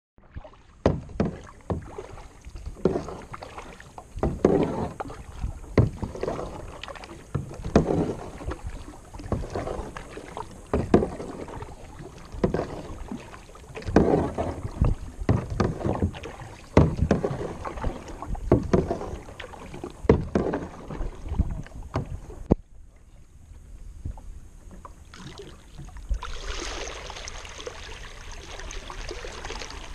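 Paddle strokes from a plastic sit-on-top kayak: splashes of the blades in the water with sharp knocks, about one a second. About three-quarters of the way through the strokes stop and a steady rush of water takes over.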